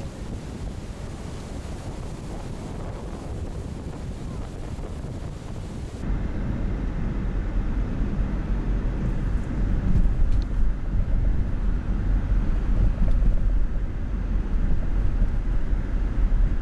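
Wind blowing across the microphone with surf breaking. About six seconds in, the sound cuts abruptly to a steady low rumble of a car driving.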